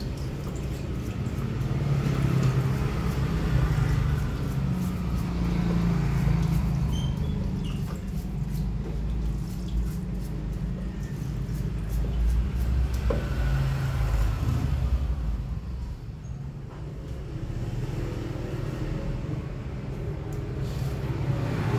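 Steady low rumble of an engine running, with faint light clicks over it.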